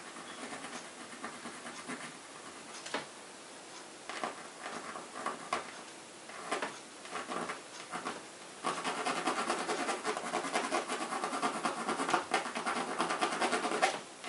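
Pencil scratching on a stretched canvas: separate strokes at first, then about nine seconds in a louder, continuous run of quick back-and-forth shading strokes filling in a dark patch.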